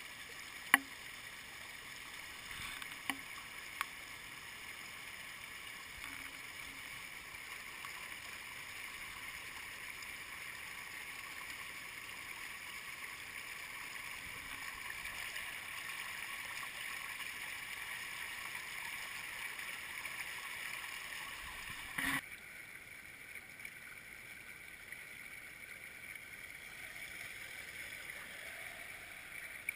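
Shallow stream rushing over stones in a steady wash of water, with a sharp click less than a second in, two fainter clicks a few seconds later, and a brief knock about two-thirds of the way through, after which the water is a little quieter.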